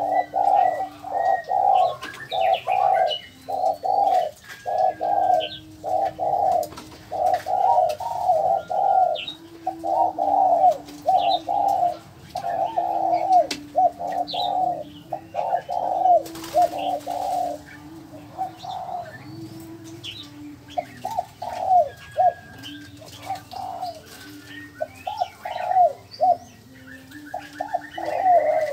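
Te te quách birds calling in a long, loud series of repeated hoarse notes, about two to three a second, over a lower held note. The series thins out about two-thirds of the way through and picks up again near the end, with faint high chirps from small birds.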